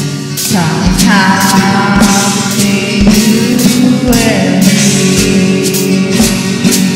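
Instrumental break in a country-style song: strummed acoustic guitar over a steady drum beat, with a lead melody whose notes slide down in pitch.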